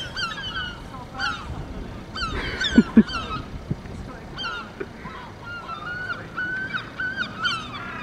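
Gulls calling over and over with short, falling squeals, at times several at once. Two heavy thumps land close together about three seconds in.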